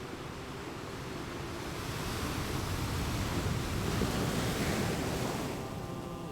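Sea waves washing in: a rushing surge that builds to its loudest about four seconds in, then falls away.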